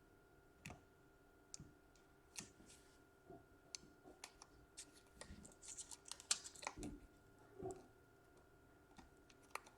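Faint, scattered small clicks and taps of laptop parts being handled and fitted during reassembly. A denser run of clicks comes about six to seven seconds in.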